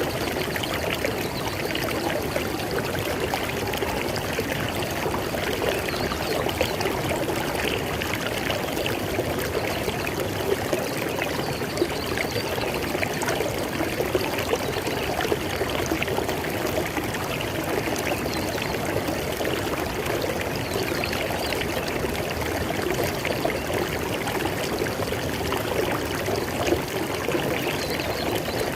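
River water flowing steadily over rocks, a continuous dense rush with small splashes and gurgles.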